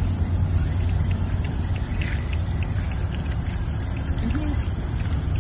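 Steady high-pitched insect chorus, a fine pulsing buzz that runs on without a break, over a low steady rumble. Faint, evenly spaced ticks sit underneath, from a spinning reel being cranked as a fish is reeled in.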